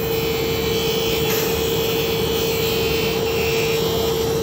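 Grinder running with a steady whine while a jig loaded with caps is pushed through it, the wheel grinding off one side of each cap in a continuous rasping hiss.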